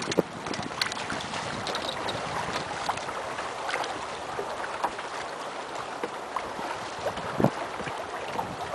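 Sea water hissing and lapping along a small sailing dinghy's hull as it moves, with scattered small splashes and ticks.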